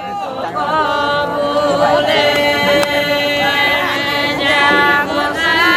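Santali traditional song sung by a group of voices together, in long drawn-out notes that slide up or down at their ends, with no drum.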